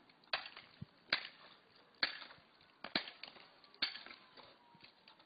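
A length of wood banging against a roof gutter packed with ice, five sharp knocks about a second apart, each with a short ringing tail.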